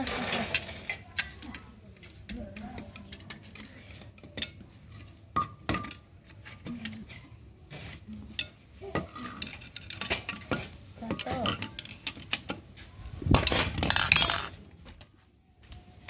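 Metal clicks and clinks of a socket wrench working on the bolts of a washing machine motor's steel end housing as they are tightened, with a louder clatter of metal about thirteen seconds in.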